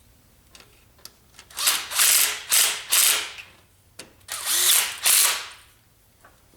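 A power tool run in short bursts: about four quick ones from a second and a half in, then two more about four seconds in.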